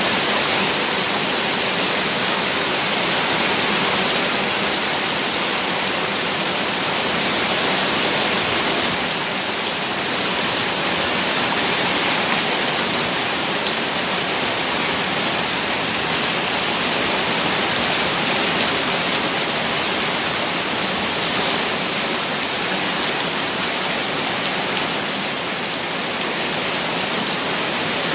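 Rainwater from a heavy downpour rushing down stone steps in sheets and gushing over a ledge: a steady rush of water.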